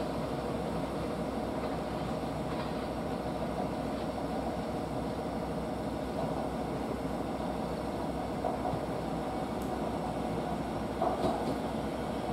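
JR East 701-series electric multiple unit running slowly into the station: a steady rumble of wheels and motors, with a few light knocks near the end.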